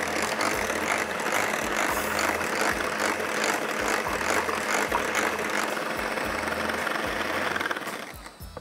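Electric hand mixer running steadily, its beaters whisking a soft cream-cheese filling in a glass bowl; it is switched off near the end.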